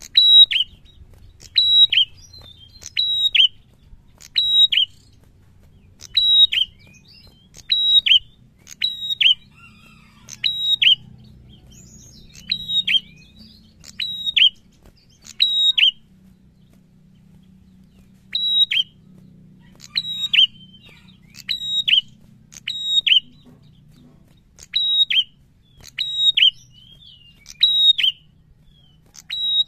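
Ashy tailorbird (prenjak) singing a sharp two-note phrase, a high note followed by a quick falling note, repeated about once a second. The phrases stop for about two seconds midway and then resume.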